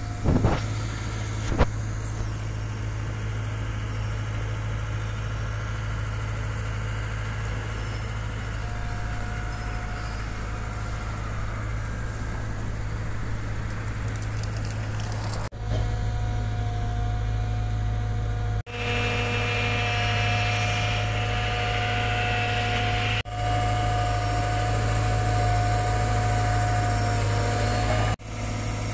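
Caterpillar M314 wheeled excavator's four-cylinder C3.6 diesel engine running steadily, with a steady high whine over it through the second half. There are a couple of sharp knocks in the first two seconds.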